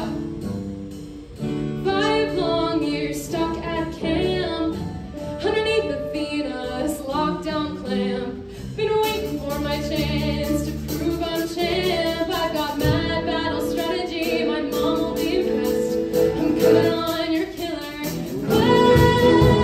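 Cast singing a number from a stage musical, backed by a live band of keyboard, guitars, bass and drums. The music grows louder near the end.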